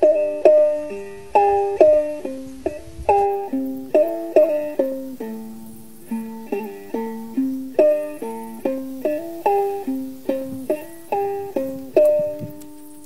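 Background music: a plucked string instrument, ukulele-like, picking a light, repeating melody over chords, each note fading quickly after it is struck.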